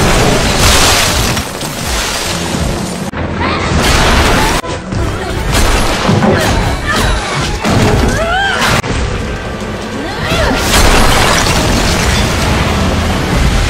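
Loud action-scene soundtrack: music with heavy booms and crashing hits.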